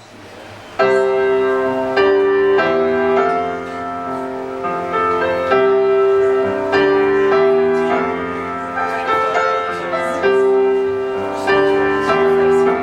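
Piano intro of a slow song: sustained chords struck every second or so, each left ringing, starting just under a second in after a quiet lead-in.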